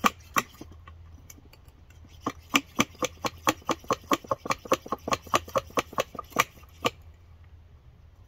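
Hand pump on an Optimus Nova stove's liquid-fuel bottle being worked to pressurise the fuel. Two clicks, then after a pause a steady run of about twenty sharp clicking strokes, about four a second, which stops near the end.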